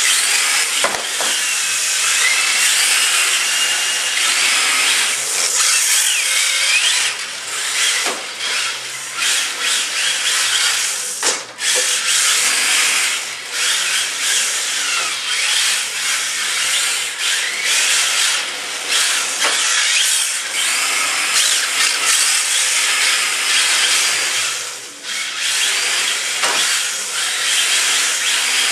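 Two Tamiya TT-01E radio-controlled cars with 20-turn brushed motors drifting on concrete. A high motor and gear whine rises and falls with the throttle over the hiss of drift tires sliding, with a few sharp knocks.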